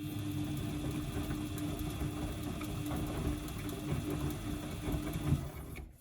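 Washing machine drum motor running for about five seconds with a steady hum and a rough crackling, then stopping near the end. The crackle is what the owner has been told may be worn motor brushes or the motor itself going bad.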